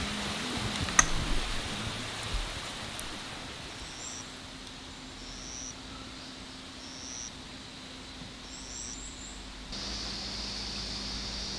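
Night ambience by a campfire: a few crackles and one sharp pop early on, then short high chirps of night insects repeating. A steady high insect trill starts suddenly near the end.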